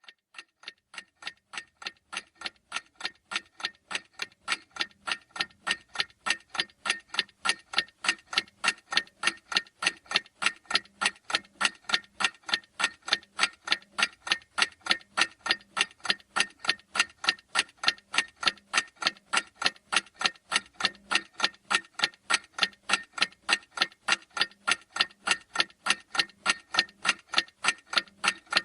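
Clock ticking: a long, even run of sharp ticks, a few a second, growing louder over the first several seconds and then steady.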